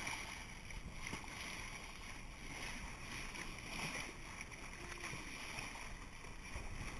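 Bow wave of a sailboat under way, water rushing and splashing steadily along the hull and around bare feet dragged through it.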